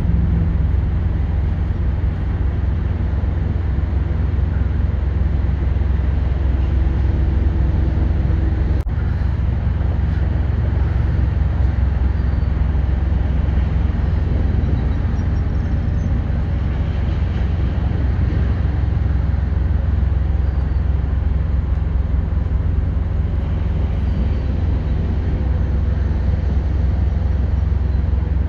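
Steady low rumble of vehicle engines and traffic, with one sharp click about nine seconds in.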